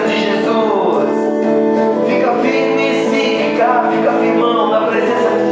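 Music from a gospel song: guitar playing steady chords, with a voice singing over it.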